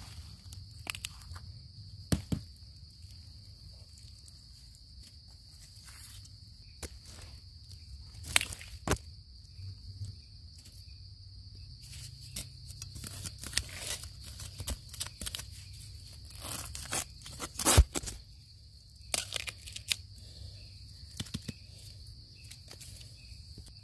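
A steel knife scraping and chopping into damp soil and roots around the base of a bamboo shoot, in irregular scrapes and knocks; one sharp knock about 18 seconds in is the loudest. Insects drone steadily and high in the background.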